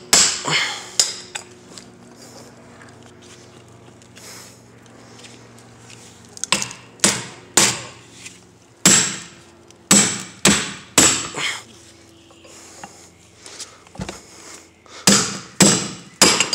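Groups of sharp hammer blows on metal, a few in quick succession each time, driving loose a rusted-on steering part that had been seized in place.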